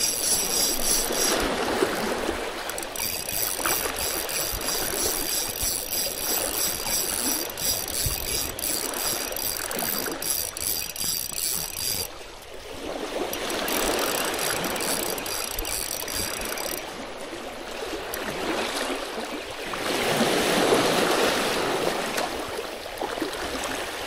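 Sea water washing against the rocks of a stone seawall, surging and ebbing in several swells. For most of the first twelve seconds a fine, fast, even whir sits above it: a spinning reel being cranked.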